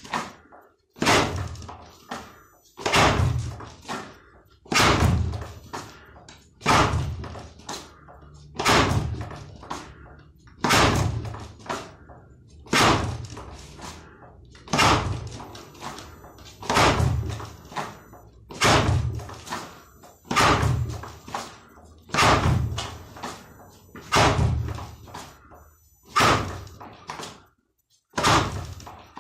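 Fist striking a spring-mounted wooden makiwara with lead-hand jabs (kizami zuki): a sharp knock about every two seconds, each dying away in a short ringing tail.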